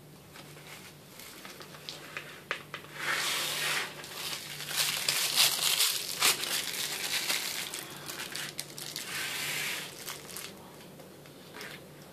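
Crinkling and rustling of a plastic piping bag as it is handled and squeezed. The noise is loudest and densest from about three to ten seconds in.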